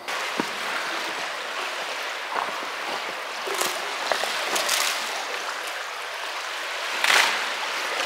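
Spring floodwater running in a steady rush, with a few crunching footsteps on icy snow crust.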